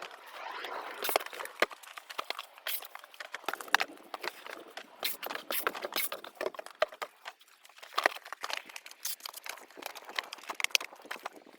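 Irregular clicks, knocks and rustling from kabocha squash and cardboard parcel boxes being handled during packing.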